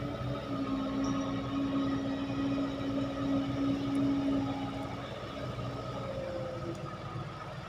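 Kobelco SK135SR excavator's diesel engine and hydraulics working under load, with a steady pitched whine that eases off about five seconds in.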